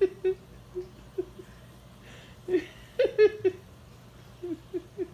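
A dog whining in a series of short cries that fall in pitch, coming irregularly, with the loudest cluster about three seconds in.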